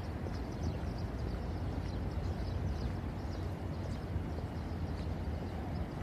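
Outdoor ambience of a wide open plaza: a steady low rumble with faint, scattered high chirps and ticks.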